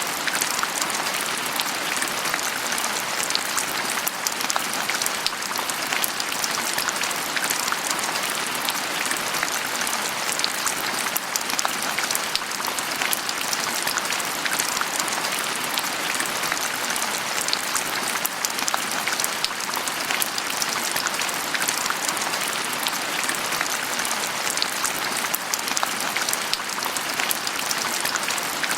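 Steady heavy rain falling on a surface, a dense even patter of many close drops that does not change.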